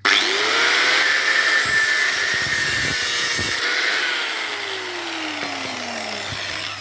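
Electric angle grinder switched on: the motor spins up at once and runs at a steady high pitch with a harsh hiss over it. About four seconds in it is switched off and winds down, its pitch falling over the next couple of seconds.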